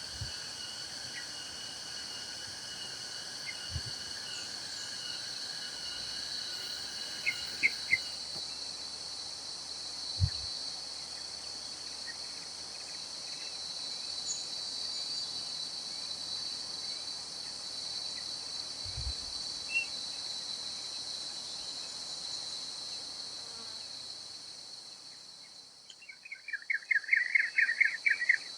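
Steady high-pitched chorus of insects, with a second, lower insect tone that stops about a third of the way in. Near the end a bird gives a quick run of chirps.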